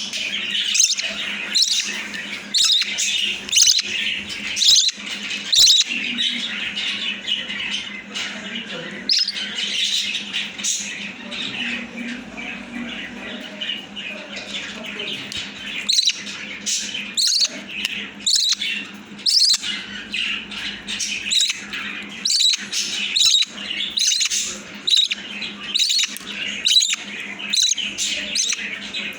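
Baby budgie (parakeet chick) making begging calls while being hand-fed: a long run of short, shrill chirps, about two a second, thinning out for a few seconds midway.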